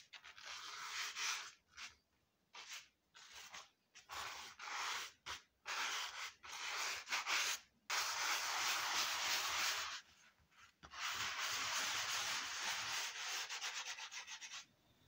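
A brush scrubbing foamy vinyl cleaner into grained vinyl upholstery trim, working the dirt out of the grain. Short bursts of strokes at first, then two long stretches of steady rapid scrubbing with a brief pause about ten seconds in.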